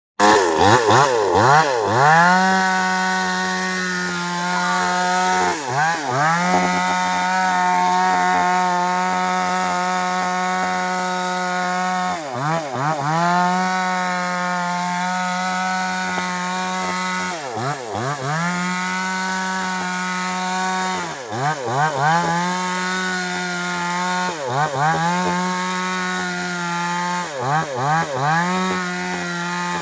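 Chainsaw engine running at high revs, its pitch briefly dropping and climbing back several times.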